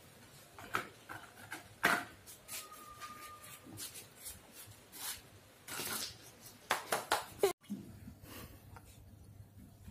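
Sparse light knocks and clatters of plastic toys and slippered steps on a tiled floor as a small child plays, then quieter after about seven and a half seconds.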